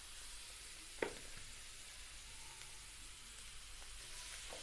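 Raw meat sizzling faintly as pieces are laid on a hot, lightly oiled nonstick double grill pan, a steady hiss with a sharp tap about a second in.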